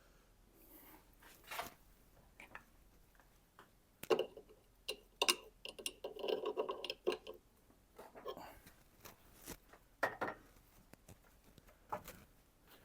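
Metal washers being slid onto a Tormek T8's shaft: scattered small clicks, short scrapes and clinks, busiest in the middle, some with a brief metallic ring.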